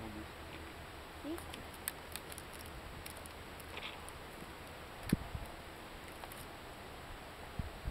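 Faint clicks and rustling of a cottontail rabbit's skin being pulled off by gloved hands, over a steady hiss, with dull thumps about five seconds in and again near the end.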